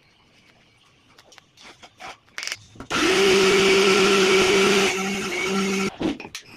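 Electric mixer grinder running with a steel jar of mint leaves, grinding them into a green paste: a loud steady motor whine that starts about three seconds in and cuts off sharply just before six seconds. Before it starts there are light clinks and knocks as the jar and lid are set in place.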